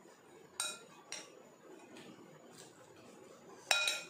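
A metal spoon clinking against dishes three times, with a short ringing after each strike; the last clink, near the end, is the loudest.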